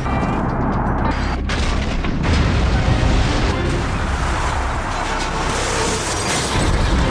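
Loud, continuous rumbling and booming noise of a train colliding with a truck at a level crossing.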